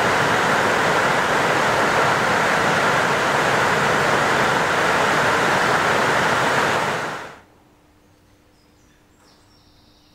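A loud, steady hiss, even across low and high pitches, that cuts off about seven seconds in.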